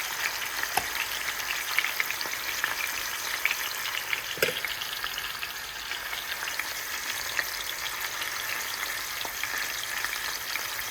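Fish frying in a pan of oil that is not yet fully hot: a steady sizzle with many small crackling pops. Two sharper knocks come about a second in and again about four and a half seconds in.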